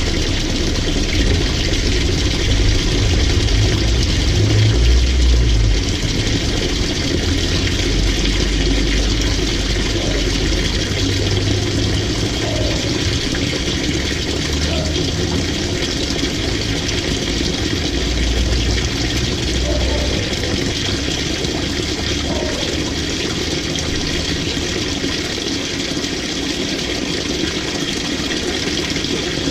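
LG 18 kg top-load washing machine running its delicate cycle: water rushing and sloshing in the tub, with a low motor rumble that swells and drops several times and then eases off.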